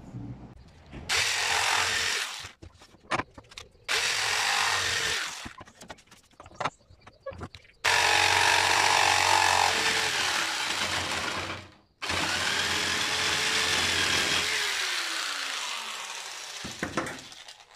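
Electric jigsaw cutting through PVC pipe in four runs: two short bursts, then two longer cuts of about four seconds each, with short knocks in the gaps. Near the end the motor's whine falls in pitch as it winds down.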